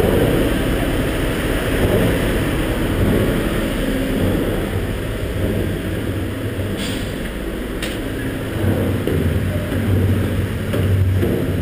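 Steady low machinery rumble with a faint hum, with two short clicks about seven and eight seconds in.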